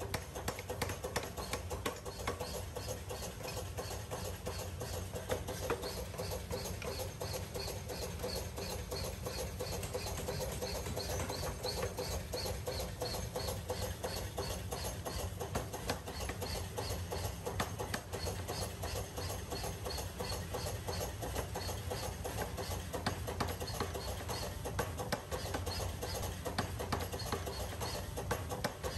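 Mechanical power hammer pounding a red-hot steel block on its anvil die in rapid, even strikes, several a second, over a steady machine running sound.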